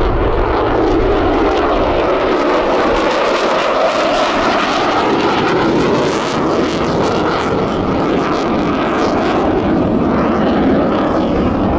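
Jet noise from the Navy F-35C's Pratt & Whitney F135 engine as the fighter flies a 4-point hesitation roll, a loud, steady rush with some crackle in the middle.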